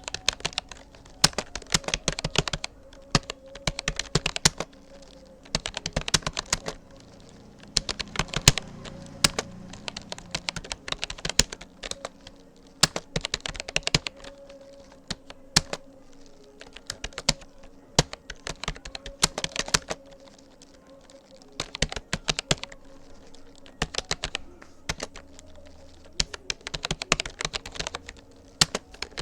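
Typing on a Rapoo computer keyboard: runs of quick key clicks broken by short pauses of about a second.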